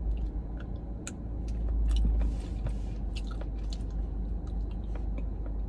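Close-up mouth sounds of a person eating a spoonful of a chocolate bourbon ball cake: scattered soft wet clicks and smacks of biting and chewing.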